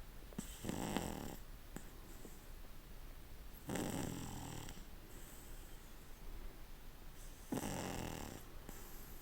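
A sleeping pug snoring: three drawn-in snores, each about a second long, roughly one every four seconds, with quieter breathing between them.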